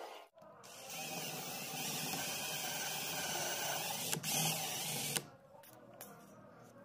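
Cordless drill running steadily as a twist bit bores into the wooden corner post of a planter box, with a brief break a little after four seconds. It stops about five seconds in.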